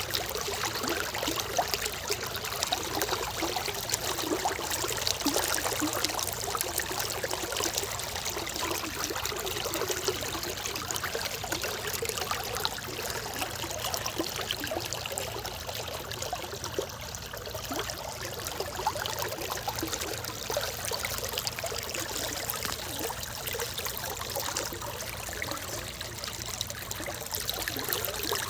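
Natural water flowing steadily, a continuous rush made of many small splashes and trickles.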